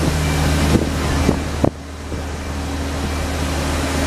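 City street noise: a steady low hum and haze of traffic with wind on the microphone, a few light knocks, and a brief drop in level a little before halfway.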